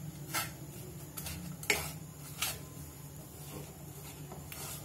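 Wooden spatula stirring and pressing crumbled khoya in a nonstick frying pan as it roasts, with a few short scrapes and taps of the spatula on the pan, over a low steady hum.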